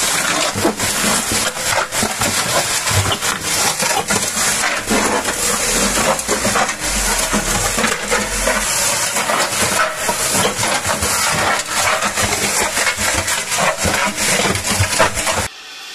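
380 V electric pan-type concrete mixer running, its paddles churning a gravelly cinder-block mortar with a dense, continuous rattle of stones against the steel drum. The noise cuts off abruptly near the end.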